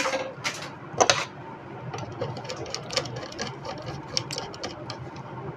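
Screwdriver tightening the terminal screw of a plastic miniature circuit breaker (MCB) to clamp a wire: a few sharp clicks in the first second or so, then a run of small, rapid ticks and scrapes.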